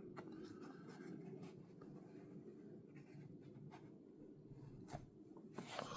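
Faint rustling of packaging being handled, with a few soft clicks, as the lens is taken out of its box.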